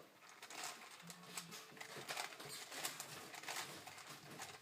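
A plastic 4x4 Rubik's Cube being turned during a solve: quick, irregular clicking and clacking of the layers as they are twisted.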